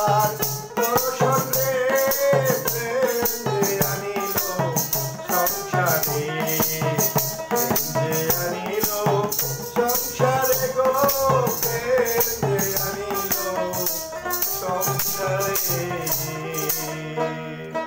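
Man singing a Bengali folk devotional song to his own hand drum, over a low sustained drone and a steady jingling rattle about twice a second. The music winds down near the end.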